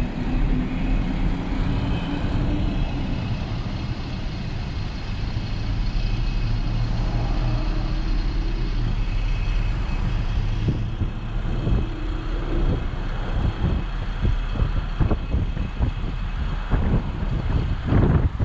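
Car road and engine noise from inside a moving car: a steady low rumble, with scattered sharp knocks and thumps in the second half.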